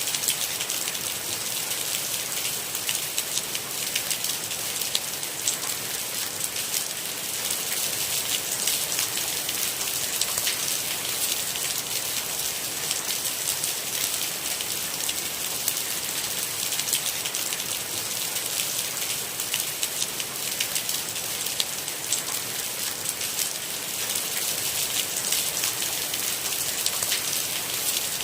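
Steady rain falling on a minivan, many small drop hits over an even hiss, with no thunder.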